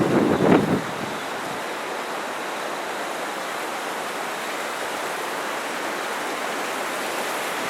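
Steady rushing of a river in flood. A gust of wind buffets the microphone in the first second.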